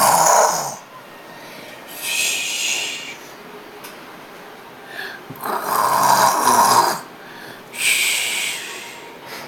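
A person putting on a snore for show: two snoring breaths in, each followed about a second later by a long breathy hiss out.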